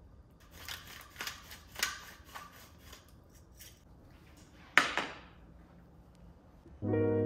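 A table knife scraping and clicking against avocado skin and a ceramic plate as avocado is spread onto toast, several short strokes in the first few seconds. About five seconds in comes a single sharp clack of a plate being set down on a table. Piano music starts just before the end.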